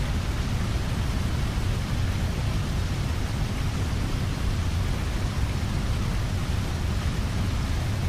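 Steady, loud rushing noise with a heavy low rumble and no distinct events, cutting off abruptly at the end.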